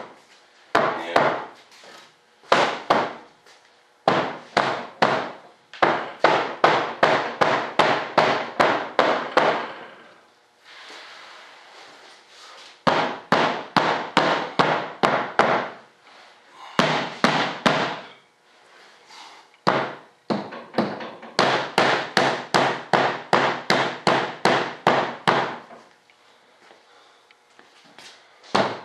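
Mallet tapping repeatedly on a thick fiberglass mold to pop the moulded fuselage half loose. Runs of quick knocks, about four a second, broken by short pauses.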